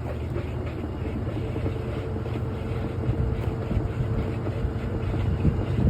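Washing machine running: a steady low rumble with faint light knocks, and a steady hum joining in about a second and a half in.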